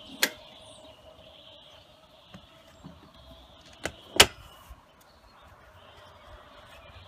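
Scooter fuel-filler cap shutting with a sharp click just after the start. About four seconds in the seat lid is pressed down and latches with two snaps, the second the loudest.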